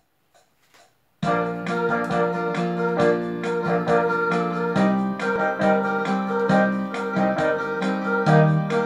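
Backing music for a song starting about a second in: keyboard or electric-piano chords over a steady beat, the song's instrumental intro.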